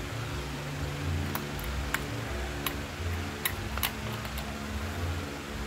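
About five short, sharp clicks of metal tweezers touching parts and the aluminium heatsink on an amplifier board, spaced unevenly over a couple of seconds, over a steady low hum.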